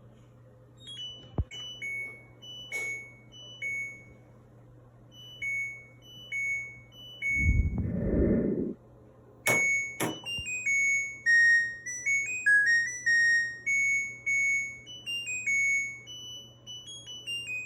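Electronic beeps and a stepping chime melody from an LG laundry appliance's control panel. A brief low rumbling whoosh comes about halfway, then two sharp clicks, then the tune runs on in quicker notes.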